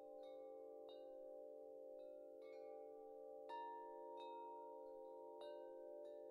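Faint chimes ringing, with irregular strikes about one or two a second, each leaving long ringing tones, over a steady drone. The loudest strike comes about three and a half seconds in.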